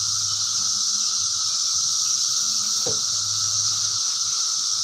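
A chorus of cicadas giving a steady, high-pitched buzzing drone that does not let up.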